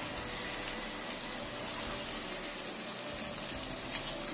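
Potato nuggets deep-frying in a wok of hot oil: a steady sizzling hiss with faint crackles. The nuggets are golden and cooked through and are being lifted out of the oil.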